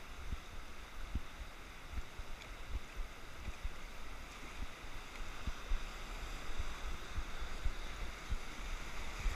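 Rushing whitewater of a river rapid heard from an inflatable raft: a steady hiss of churning water, growing a little louder in the second half, with irregular low thumps underneath.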